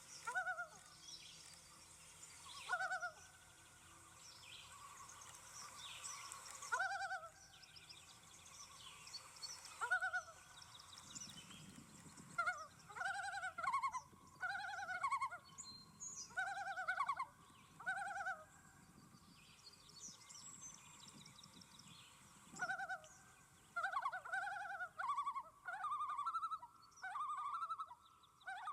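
Common loon calling in short quavering notes: a few spaced-out calls at first, then quicker runs of notes in the middle and again near the end.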